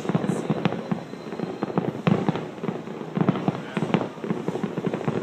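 Consumer fireworks going off in quick succession: a dense, irregular string of sharp bangs and crackles, several a second.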